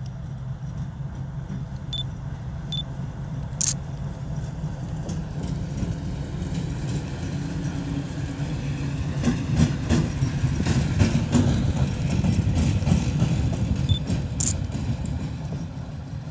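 ChME3 shunting diesel locomotive's six-cylinder diesel engine running as it passes close by, growing louder to a peak in the middle and easing off as it moves away. A run of sharp clicks from its wheels over rail joints comes as it passes.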